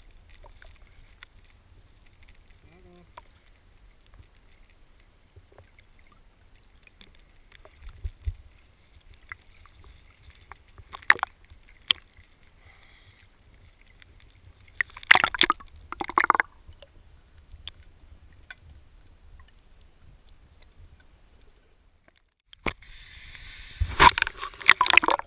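Lake water lapping and sloshing against a camera held at the surface, with a low steady rumble. Scattered sharp splashes come in short clusters around the middle, and near the end, after a brief cut-out, there is a louder, longer stretch of splashing.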